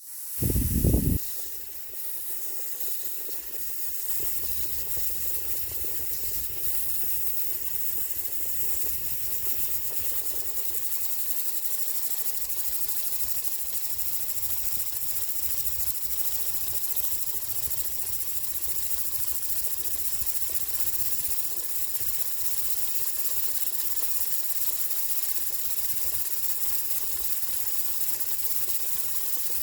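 Tiny 3D-printed oscillating-cylinder air engine running on compressed air: a steady hiss of air with a fast, even low pulsing from the cylinder. A short loud thump comes just as it starts, then the running settles to a constant level.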